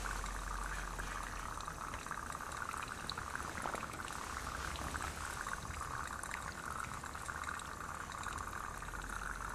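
Water heating in a cooking pot on a camp stove: a low, steady hiss with faint scattered ticks and crackles.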